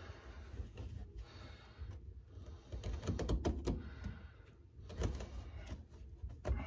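Hands working the floor carpet of a car: irregular taps, clicks and scraping, thickest about three to four seconds in and again near the end, as the carpet is handled and slit around a seat bracket.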